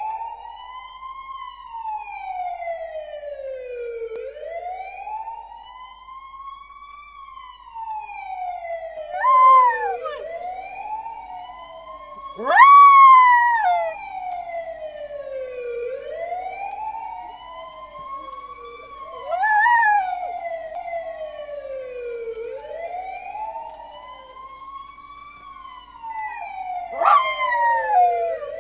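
A siren wailing slowly up and down, about one rise and fall every six seconds, while a small dog howls along with it in short howls four times, the loudest about halfway through.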